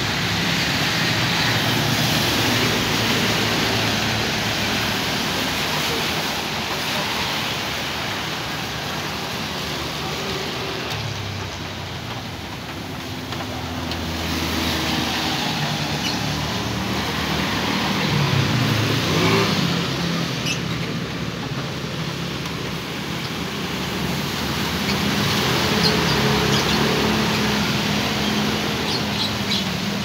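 Road traffic passing on wet asphalt: motorcycles, cars and a minibus going by, their tyres hissing on the wet road, with engine hums swelling and fading as each passes. A steadier engine hum builds near the end as a bus approaches.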